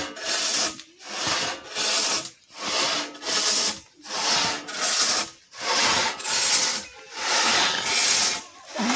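Long two-man pit saw ripping lengthwise through a wooden timber, worked up and down by sawyers above and below. Steady rhythm of rasping strokes, a little over one a second.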